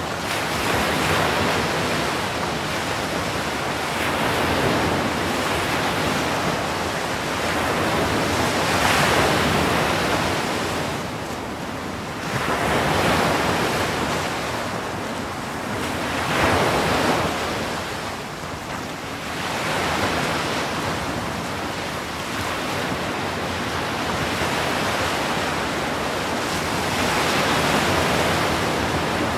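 Atlantic surf: waves breaking and foaming water washing toward the shore. It is a continuous rush that swells every few seconds as each breaker comes in.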